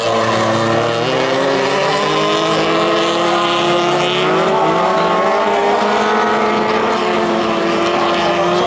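Rallycross car engines racing on a dirt and tarmac circuit. The main engine note climbs slowly through the first half and then holds steady as a car accelerates down the track.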